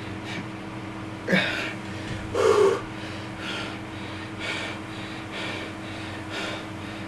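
A man's strained breathing through the pain of stitching his own cut hand: a sharp intake about a second in, a short grunt just after, then hard breaths through the nose about once a second.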